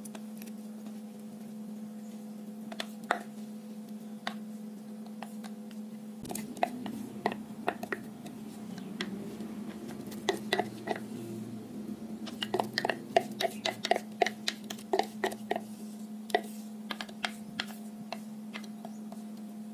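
Wooden spatula scraping coarsely chopped green chillies out of a glass chopper bowl into a glass bowl. Light clicks and taps of wood on glass come now and then, then often from about six seconds in, over a steady low hum.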